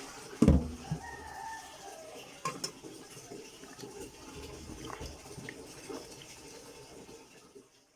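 Bowls and utensils being handled, with a loud knock about half a second in and lighter clinks and knocks after it.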